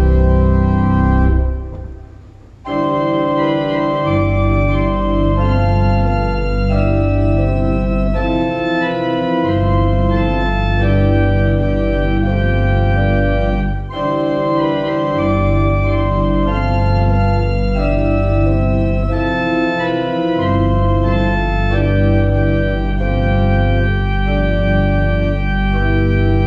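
Organ playing a Thanksgiving hymn arrangement on manuals and pedals. A held chord releases about two seconds in, then after a short pause the music resumes in sustained chords over a pedal bass line that drops out now and then.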